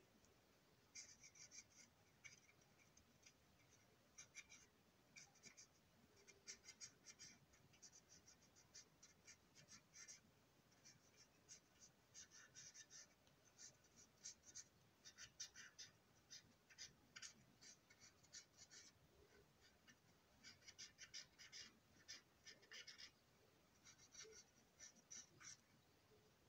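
Faint, short scratchy strokes of a colouring tip rubbed back and forth over the ribbed plastic side of a model box car, coming in quick bursts with brief pauses between them.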